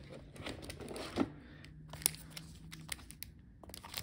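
Plastic packaging crinkling and rustling, with scattered light clicks and taps as a small accessory is handled and lifted out of a plastic blister tray. One sharper tap comes about a second in.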